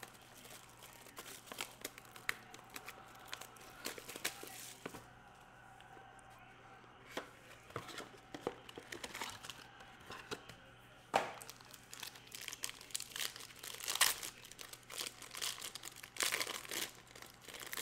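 Plastic wrapping crinkling and tearing as a sealed box of football trading cards is opened, with scattered sharp crackles from handling the packaging and cards.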